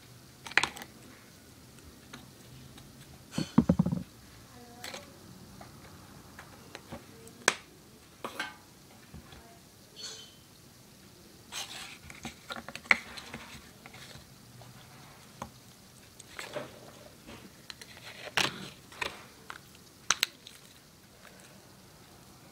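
Scattered light clicks and knocks of a small plastic cup and craft supplies being handled and set down on a tabletop, with a louder cluster about three and a half seconds in.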